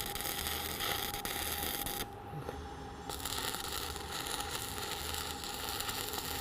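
Electric welding arc crackling and hissing while a tack weld is laid on a steel T-joint. It cuts out about two seconds in and strikes again about a second later.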